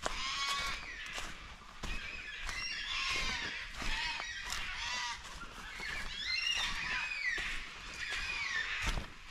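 Several wild birds calling over one another in harsh, squawking calls that sweep up and down in pitch, one after another throughout.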